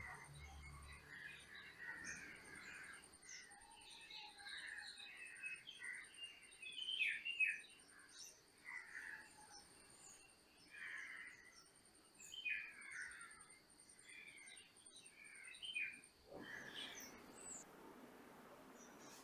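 Faint chirping and twittering of small birds, with a thin steady high whine and a rapid high ticking trill behind them; about three seconds before the end the chirps and trill stop and a soft even hiss remains.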